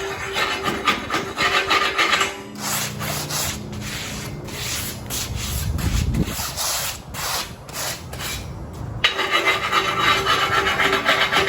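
Hand scraping on torch-cut steel plate as slag is cleaned off the cut edge: dense rubbing at first, separate strokes through the middle, then steady scraping again near the end.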